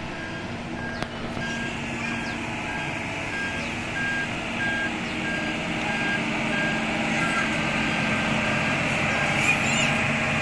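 Concrete mixer truck's reversing alarm beeping about twice a second over its diesel engine running, getting louder as the truck comes closer.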